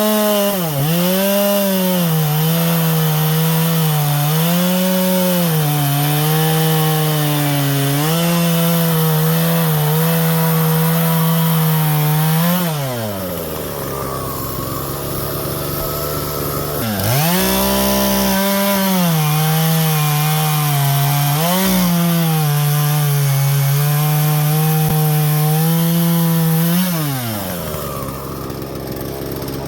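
Husqvarna 120 Mark II two-stroke chainsaw running at full throttle and cutting through wood, its note dipping slightly under load. It drops to idle about halfway through, revs back up for a second cut, then drops to idle again near the end.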